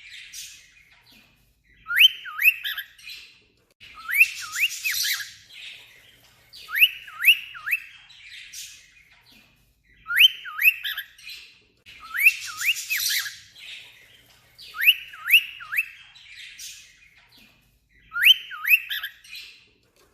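Cockatiel mimicking an alarm clock: groups of three or four quick, sharp whistled beeps, repeated every two to three seconds. A couple of the groups come with a harsh, raspy squawk mixed in.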